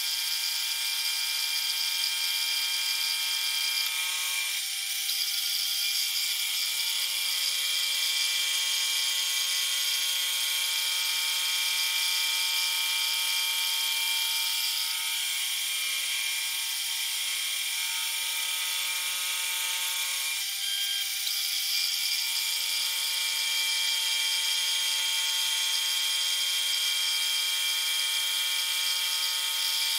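Milling machine spindle spinning a 36-grit bowl grinding disc as it surfaces a metal block: a steady high-pitched machine whine with a grinding hiss, its tone shifting about four and twenty seconds in.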